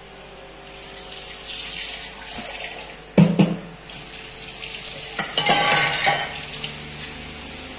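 Metal spoon clinking and scraping against a cooking pot of chicken sukka, with one sharp clank just after three seconds and more clatter a couple of seconds later, over the faint sizzle of the masala frying.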